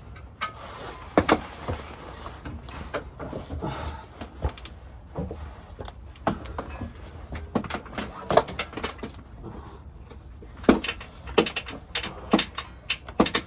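Irregular metallic clicks and knocks of hand tools working on bolts on the underside of a car, during removal of a GM 4L60E transmission.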